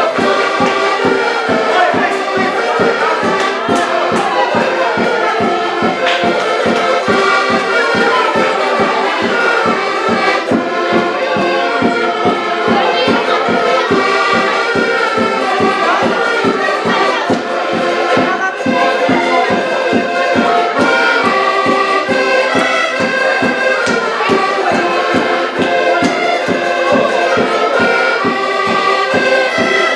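Several accordions playing a tune together, with a steady beat.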